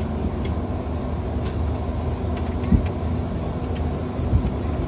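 Steady low hum inside a parked airliner's cabin, with two dull thumps, one near the middle and one toward the end.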